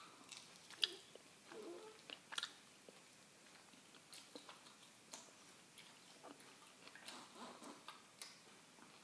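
A baby hiccupping: faint, short, sharp hics every second or so, the loudest about a second in, with soft little voice and mouth sounds in between.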